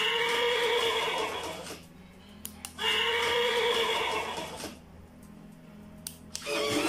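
Robotic toy horse's speaker playing a recorded horse whinny twice, each lasting about two seconds, with a few short clicks in the gap between. Another electronic sound starts just before the end.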